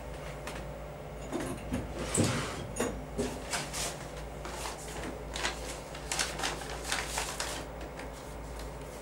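Paper and photographs being handled at a desk: irregular rustles and light knocks for several seconds, over a low steady room hum.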